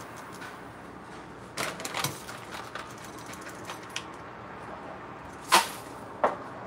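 Hot oil in a wok frying flattened rice (chiura), with a steady sizzle. A few light metal clinks come about two seconds in, and two sharp knocks near the end, the first of them the loudest.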